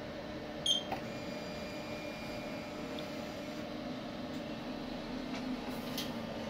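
Roland VersaUV LEC-330 UV printer-cutter giving one short beep as its test-cut button is pressed, then running with a steady hum, a faint high whine and a few light clicks as it starts a test cut.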